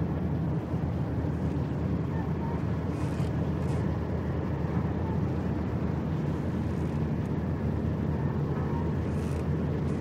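Seaport ambience: a steady low rumble, with faint short higher sounds now and then.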